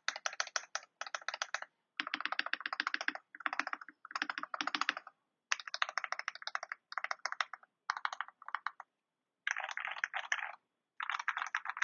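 KBD67 Lite mechanical keyboard with lubed Gateron Cap Milky Yellow linear switches, PBT keycaps and a polycarbonate plate, typed on in quick flurries of keystrokes with short pauses between them. The keystrokes have a warm sound.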